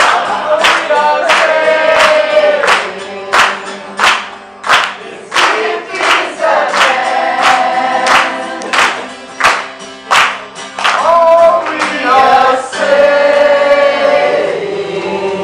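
A group singing together to an acoustic guitar, clapping in time about twice a second. The clapping stops about three-quarters of the way through while the singing carries on.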